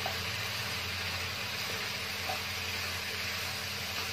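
Grated carrot and jicama frying in a pan, a steady sizzle as the vegetables are stir-fried with a wooden spatula, with a couple of faint taps.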